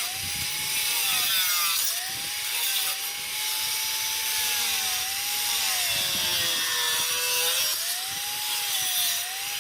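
Electric grinder working on a rusty steel body panel, a continuous grinding hiss over a motor whine that dips and rises as it is pressed in and eased off, then cuts off near the end.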